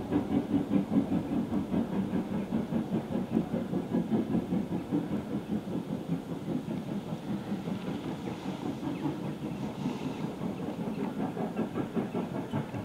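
Steam locomotive working hard, its exhaust beating in a fast, even rhythm as it hauls a train, gradually getting quieter as it draws away.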